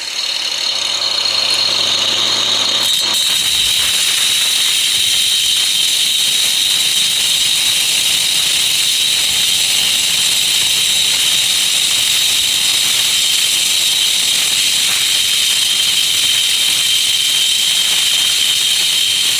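Electric grinder running continuously against a workpiece, a steady high-pitched whine over a hiss that grows fuller about three seconds in.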